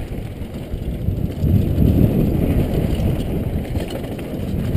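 Mountain bike descending fast on a dry, loose dirt trail, heard from a helmet camera: a continuous low rumble of wind on the microphone mixed with the crunch of tyres on dirt and the rattle of the bike over bumps, swelling about one and a half seconds in.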